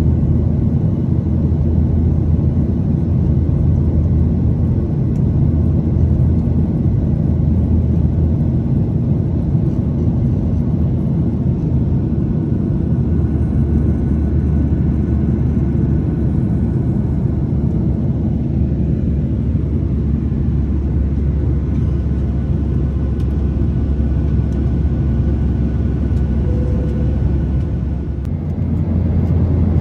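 Airliner cabin noise: a steady, loud low rumble of jet engines and airflow heard from inside the passenger cabin.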